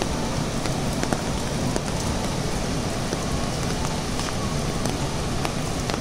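Steady rushing noise of a large waterfall under light rain, with a few scattered tick-like drops.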